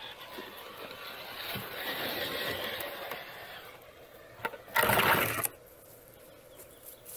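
RC rock crawler's electric drive motor and gears whirring as the truck climbs over rocks, swelling then fading, followed about two-thirds of the way through by a loud, brief rustle of foliage brushing against the microphone.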